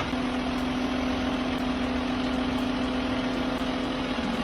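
An engine idling steadily, giving a constant low hum over a rougher noise.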